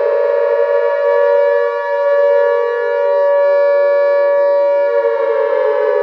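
CSKA Moscow's goal siren, a civil-defense-style siren sounding one long blast. It has wound up to a steady high pitch and holds it, then begins to sink slowly in pitch near the end.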